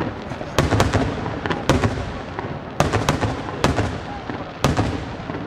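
Aerial firework shells bursting in quick succession: sharp bangs arriving in clusters of two or three about once a second, each followed by a short low rumble.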